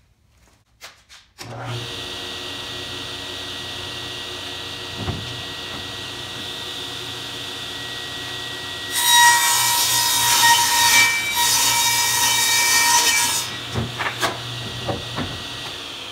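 Craftsman table saw switched on about a second in and running steadily. From around the middle it rips through a 3/4-inch red oak plywood sheet for about four seconds, much louder, with a ringing hiss. A few knocks follow as the cut ends, while the blade keeps spinning.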